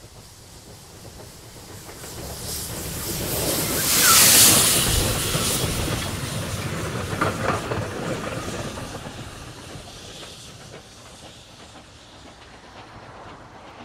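Steam locomotive hauling vintage coaches as it passes close by. Steam hisses loudly as the engine goes past about four seconds in, then wheels click over the rails as the coaches roll by, and the sound fades as the train pulls away.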